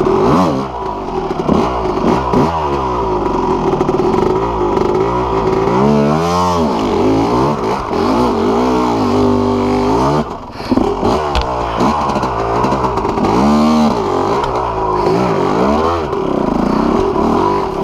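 Yamaha YZ250 two-stroke dirt bike engine being ridden hard, its pitch rising and falling again and again with the throttle. The throttle comes off briefly about ten seconds in, then the engine picks up again.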